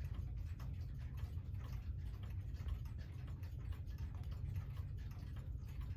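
Antique Girod pendulum wall clock ticking steadily, over a low steady background rumble.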